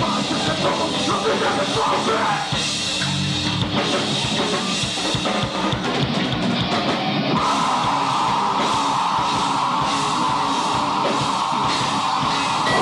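A live heavy rock band playing loud, with distorted electric guitars and a drum kit. A held high note comes in about seven seconds in and rings on over the playing.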